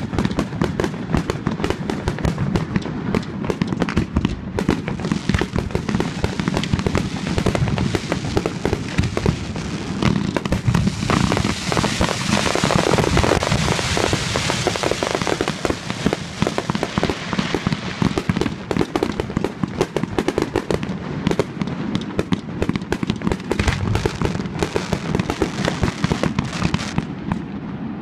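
Aerial fireworks display: a rapid, continuous barrage of shell bursts and bangs, thickening into a dense crackle about halfway through.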